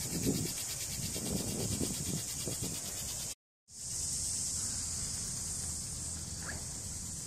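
Insects trilling steadily and high-pitched, with footsteps and rustling on soil underneath in the first half. All sound cuts out for a moment a little over three seconds in, then the insect trill carries on alone.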